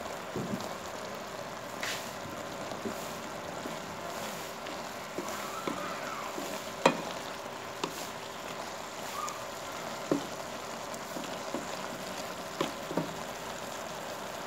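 Squash pieces sizzling steadily in a little liquid in a nonstick wok while a wooden spatula stirs them, with a few sharp knocks of the spatula against the pan, the loudest about seven seconds in.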